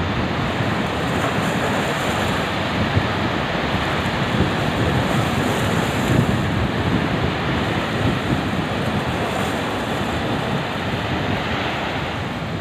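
Rough, storm-driven surf breaking steadily along the shore, with strong wind buffeting the microphone.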